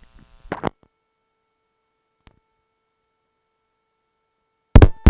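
A dynamic microphone's line being unplugged and replugged at the mixer: a short pop as the cable comes out, then dead silence for about four seconds, then a burst of loud crackles and pops as the XLR connector goes in and the channel comes back live.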